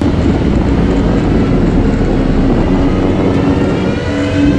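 Mini jet boat's 1053cc Yamaha four-stroke engine and jet drive running steadily under way, loud and even, with a dense rushing noise over the engine note. The sound cuts in abruptly at the start.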